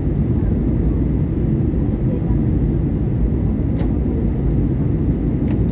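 Steady low rumble of jet airliner cabin noise during descent, the engines and rushing air heard from inside the cabin at a window seat. Two faint clicks in the second half.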